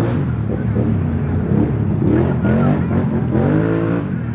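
A steady engine drone runs underneath, and in the middle a pitch that rises and falls rides on top, with voices calling out.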